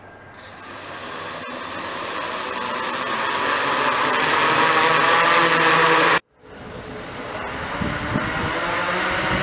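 Quadcopter's four electric motors and propellers spinning up, a whirring hum that grows steadily louder over about six seconds. It breaks off abruptly, then the motors run again at a steady level with a gusty low rumble near the end.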